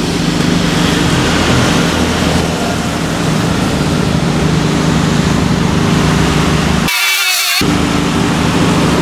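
Car engine idling steadily, a constant low hum. About seven seconds in, the hum briefly cuts out and a short high hiss takes its place.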